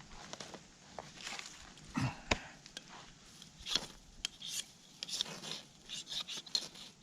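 Knife scraped again and again along a fire striker to throw sparks onto tinder: a run of short, irregular rasping strokes.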